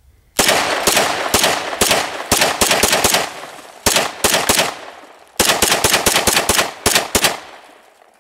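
Glock 17 9mm pistol fired in rapid succession, about twenty shots in three strings, with a short gap after each string. Each shot is followed by a trailing echo.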